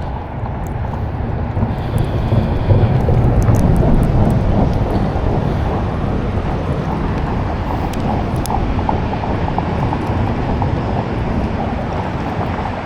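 Wind buffeting the microphone outdoors: a steady low rumble of noise, a little louder a few seconds in, with a few faint clicks.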